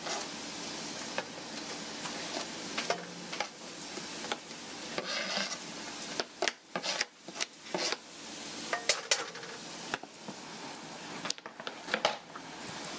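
Chopped onions and peppers sizzling in hot olive oil in a frying pan, stirred with a spatula that scrapes and clicks against the pan again and again.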